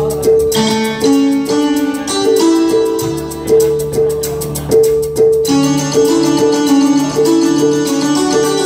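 Korg Pa1000 arranger keyboard played live: a piano-like melody of held notes over a steady accompaniment pulse, growing brighter and fuller about halfway through.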